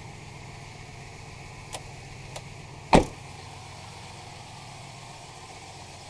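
2005 Chevy Silverado's 4.3-litre V6 idling steadily about a minute after a cold start at 15°F. A single sharp thump about halfway through, with a couple of faint clicks just before it.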